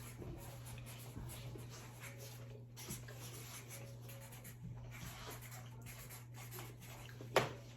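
Faint scratching of a pen writing on paper, over a steady low hum, with one sharp knock near the end.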